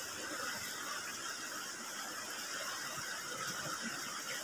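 Steady rush of a shallow river flowing over rocks, with a few faint soft sounds of eating by hand.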